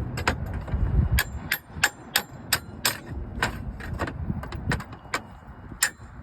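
Hammer tapping on a slate ripper under a roof slate, a run of sharp metallic strikes about two a second, irregularly spaced, working to cut the copper nail that still holds the broken slate.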